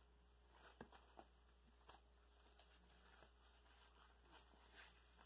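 Near silence: room tone with a few faint, short rustles and ticks as a cloth work glove with rubber grips is handled and pulled onto a hand.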